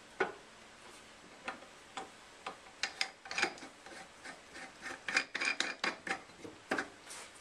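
Irregular scraping and clicking of wood as a bark-covered log is twisted by hand against a wood lathe's toothed spur drive center, the spurs slipping in the log's end, which has stripped out. The lathe is not running.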